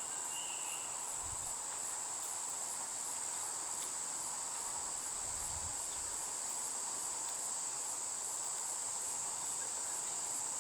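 Crickets chirring in a continuous high-pitched trill that holds steady throughout.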